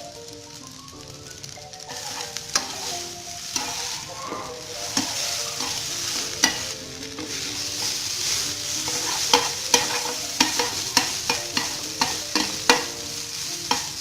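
Instant noodles sizzling as they pan-sear in oil on high heat, crisping and starting to brown, with a cooking utensil scraping and tapping against the pan. The taps come in quick succession over the last few seconds.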